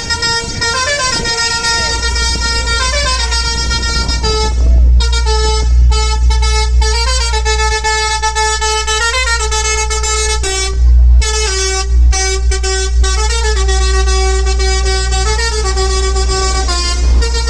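A bus's basuri musical air horn playing a tune of stepped notes, pausing briefly a few times, over a deep steady low hum.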